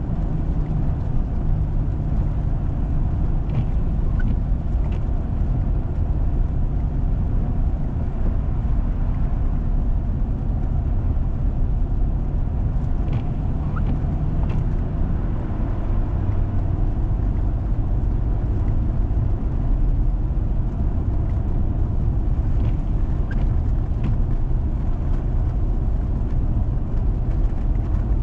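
A 4x4 vehicle driving along a snowy road: a steady low rumble of engine and tyres, with a few faint ticks scattered through it.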